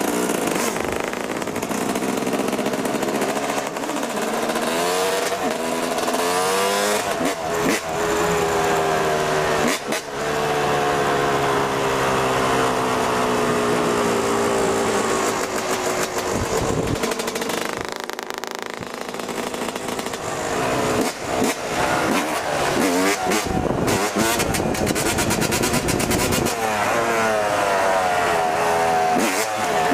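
Motorcycle engine running under way, its pitch rising and falling repeatedly as it revs and shifts through the gears, with wind buffeting the microphone.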